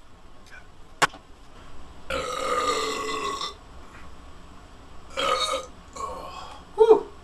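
A person burping: one long burp of about a second and a half, then three shorter burps near the end, from drinking beer. A single sharp click about a second in.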